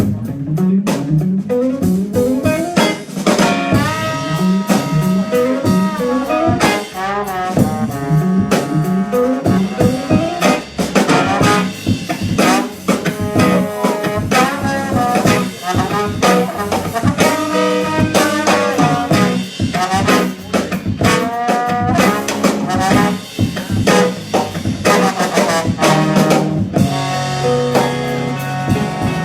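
Live band music: a lead melody of held and sliding notes over a drum kit, played at a sound check.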